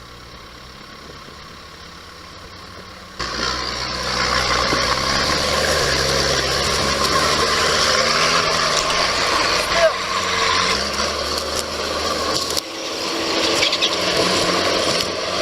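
Sherp amphibious ATV engine running with a low drone. About three seconds in it suddenly gets much louder, with a strong rushing hiss over the engine.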